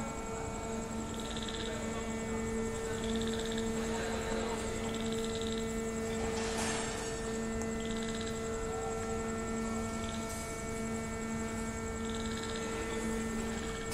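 Steady electric hum from a rotary wagon tippler's drive machinery, holding one low pitch with higher overtones. A short buzzing pulse repeats about every two seconds, and there is a brief rushing noise about halfway through.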